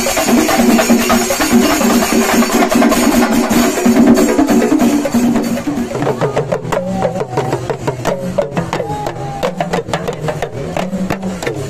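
Singari melam: chenda drums played loud and fast with cymbals. About six seconds in, it changes to a sparser beat of drum strokes and cymbal clashes, with crowd voices.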